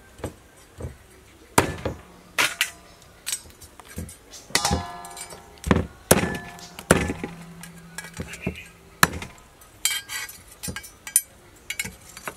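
Cleaver chopping cooked mud crabs on a wooden chopping board: a long run of irregular sharp knocks as the blade cuts through shell and strikes the board.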